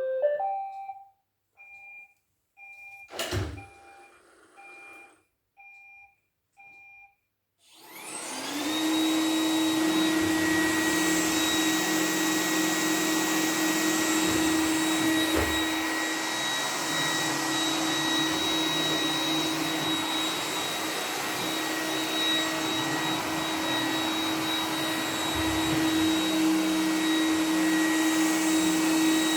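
Roomba 980 robot vacuum starting a cleaning run: a short tune, then about six short beeps roughly a second apart and a single knock, after which its vacuum motor spins up and runs steadily with a high whine, in boost mode at full suction.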